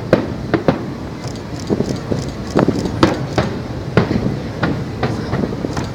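Fireworks going off: an irregular series of sharp bangs, about a dozen, over a steady background rumble.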